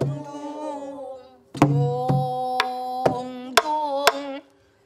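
Pansori singing with buk barrel-drum accompaniment. A low drum stroke comes at the start and another about a second and a half in. A sung phrase then holds a long note that wavers near its end, over sharp stick strokes on the drum, and it breaks off shortly before the end.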